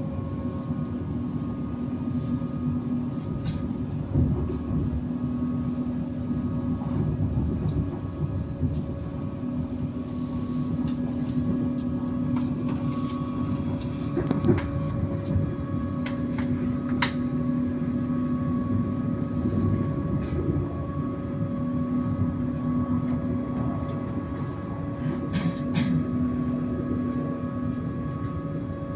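Passenger train heard from inside the carriage, running at speed: a steady rumble with a steady hum of several tones over it, and a few sharp clicks along the way.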